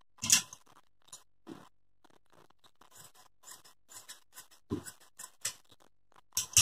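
Tailor's scissors snipping through petticoat fabric along a fold: a run of short, crisp snips at uneven intervals, with a few louder knocks as the scissors are picked up and handled.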